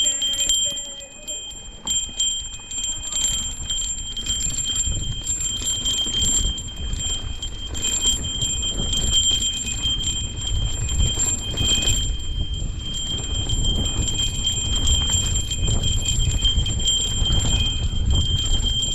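Bicycle bells ringing on and on as the bikes roll over rough ground, with rattling clicks and a low rumble from the bikes and tyres.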